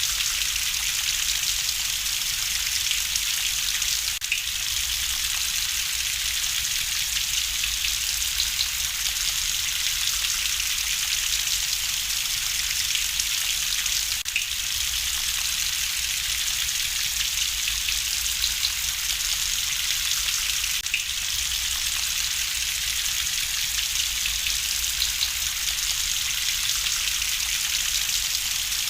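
Steady rain falling, an even hiss with a few faint scattered ticks.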